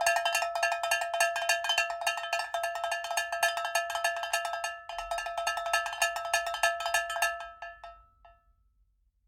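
A metal bell struck rapidly many times a second, ringing steadily, with a short break about five seconds in, then dying away near the end.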